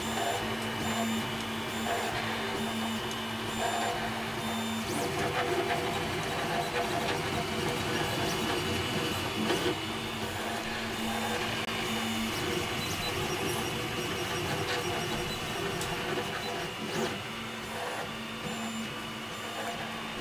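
Geeetech MeCreator 2 FDM 3D printer printing: its stepper motors whine in steady tones that switch on and off and change pitch as the print head and bed move.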